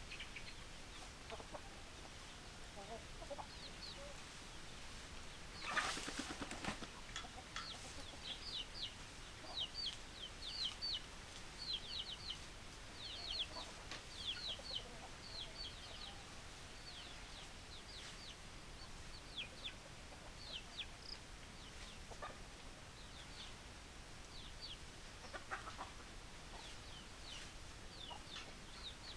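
Chickens calling: a long run of short, high-pitched, falling peeps, a few lower clucks early on, and one loud squawk about six seconds in.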